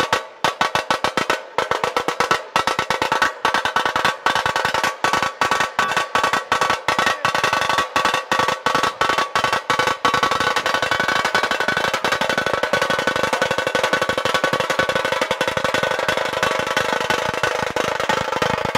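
Dhol-tasha drumming: large barrel dhols and tasha drums struck with sticks. For about the first ten seconds the strokes come sharp and separate, in a pattern with short gaps, then they merge into a dense, continuous beat.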